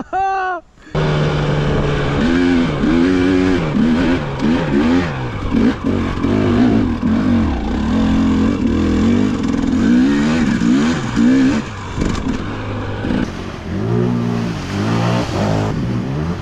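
KTM 300 XC two-stroke dirt bike engine under load, revving up and down again and again as the throttle is opened and closed. It drops out briefly just after the start, settles to a steady low note, and from about two and a half seconds in its pitch rises and falls roughly once a second.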